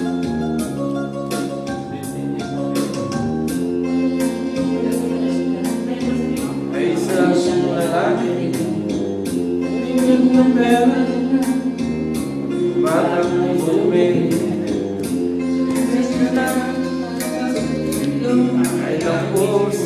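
A man singing karaoke into a microphone over a backing track with a steady beat, his voice coming in phrases.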